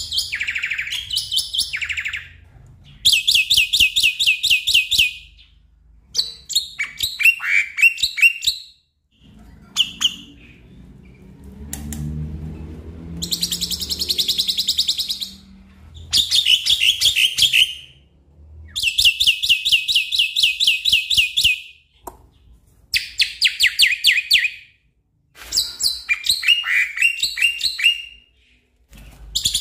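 Black-winged myna singing in full voice: loud bursts of rapid, evenly repeated notes about two seconds long with short pauses between them, some of them quick falling notes.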